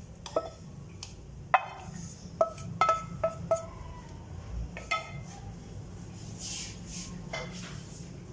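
Cookware clinking: about eight sharp knocks over the first five seconds, each ringing briefly, followed by a faint rustle, over a low steady hum.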